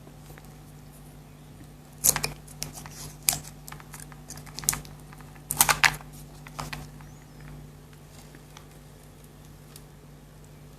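Chocolate being bitten and chewed close to the microphone: crisp crunches, a cluster about two seconds in and another around the middle, thinning out after about seven seconds.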